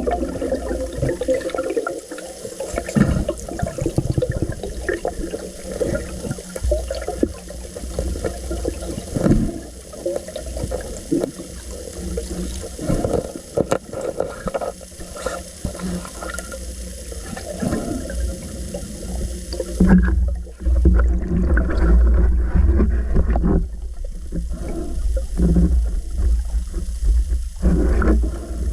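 Muffled underwater water noise: a steady low rumble of moving water with gurgles and scattered clicks, as heard by a camera in a waterproof housing while diving.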